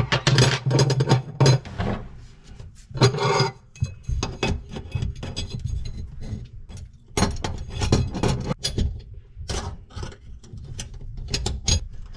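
Metal clinks, scrapes and rattles of a garbage disposal's three-bolt mounting ring being pressed and turned onto a stainless steel sink drain flange, in irregular bursts of handling noise.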